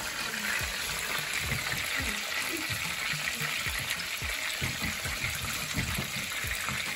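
Jack fish pieces frying in a pan of oil with a steady sizzle, and irregular small pops and splashes as peeled yam slices are slipped by hand into a pot of hot water beside it.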